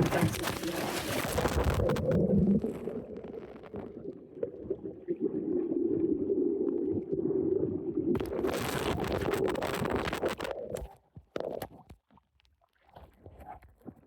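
Water sloshing and splashing around a small boat, with two louder noisy bursts, one at the start and one about eight seconds in, before it dies away near the end.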